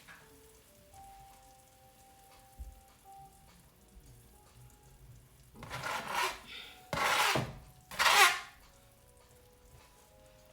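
A spoon stirring and scraping food in a pan, in three short bursts of scraping a little past halfway through.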